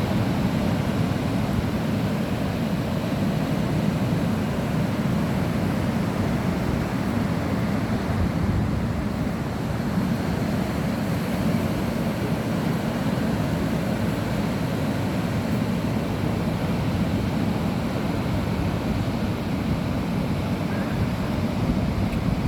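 Sea surf breaking on a beach, heard as a steady, unbroken rush, mixed with wind buffeting the microphone.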